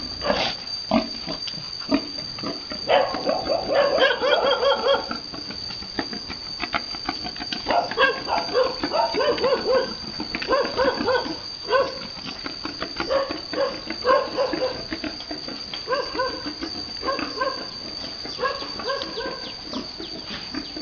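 A pig grunting in short repeated series, about two grunts a second, with a denser run of calls about three to five seconds in.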